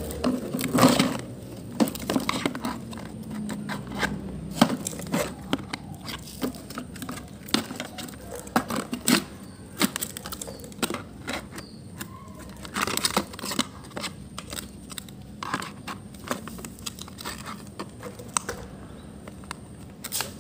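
Plastic toy trucks and excavators being handled and knocked about: irregular clicks, knocks and scrapes, a few of them sharper than the rest.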